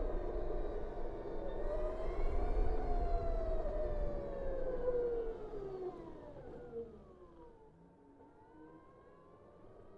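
BMW CE 04 electric scooter's motor whine, rising and falling in pitch with road speed over low wind and road noise. The whine falls and fades about six to seven seconds in, then a faint whine rises again near the end.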